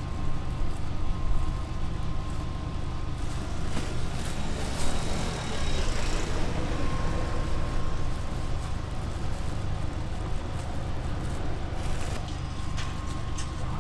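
A steady low machine hum with a faint thin high tone that comes and goes.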